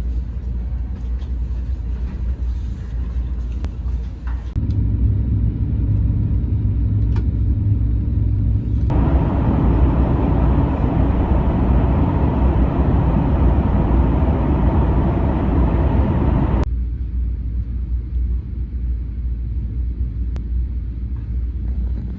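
Steady low rumble of a moving vehicle, in several edited segments that change abruptly in loudness; loudest in the middle stretch.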